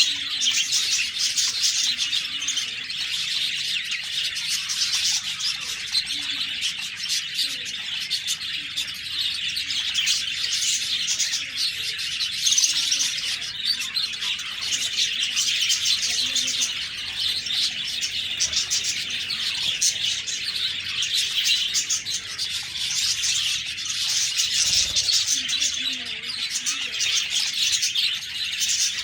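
Budgerigars chirping and chattering continuously, with many high calls overlapping at a steady level.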